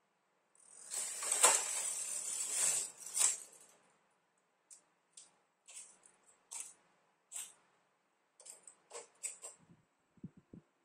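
Silver Reed SK830 knitting machine's carriage, coupled to the ribber carriage, pushed across the needle beds: a rasping, clattering slide lasting about three seconds. A string of light, separate clicks follows.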